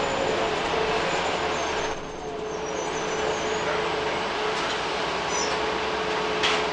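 Interior noise of a 2008 Orion VII NG CNG transit bus under way: the Cummins ISL-G inline-six engine and drivetrain running, with road rumble and a steady whine. The noise dips briefly about two seconds in, and there is a single knock near the end.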